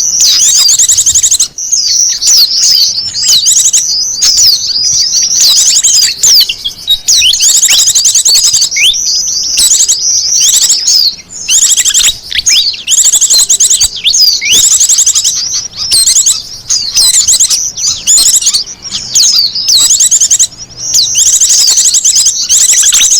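A loud, dense chorus of small birds chirping, with rapid high trills and quick downward-sweeping notes, broken by short pauses every few seconds. This is a bird-lure call track, played to draw small wild birds in.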